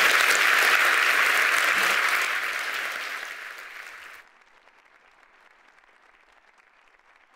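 A large auditorium audience applauding at the end of a talk. The clapping is steady at first, fades over a couple of seconds, and drops away abruptly about four seconds in, leaving only a faint hiss.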